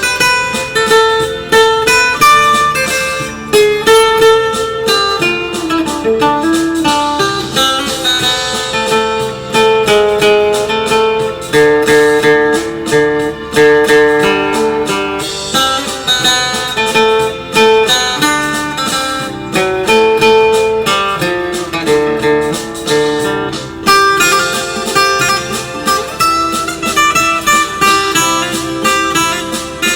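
Background music led by a plucked acoustic guitar, with strummed chords and a bluesy slide-guitar feel.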